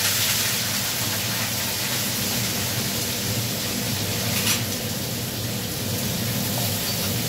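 Chopped green beans and carrots frying in hot oil in a pan, sizzling steadily after being tipped in, with a single light knock partway through.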